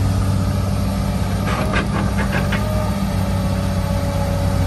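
A steady low hum like an idling engine, with a few light scrapes and clicks of a plastic toy excavator bucket digging into sand about two seconds in.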